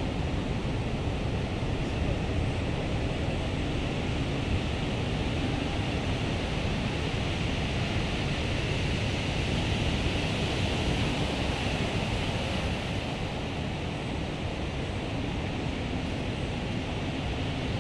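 Ocean surf breaking on a beach: a steady rush of waves, swelling a little about halfway through, with wind rumbling on the microphone.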